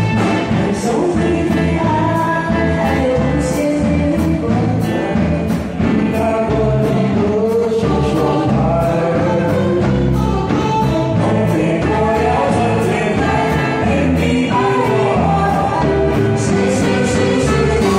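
A woman and a man singing a duet through handheld microphones over amplified backing music with steady cymbal strokes.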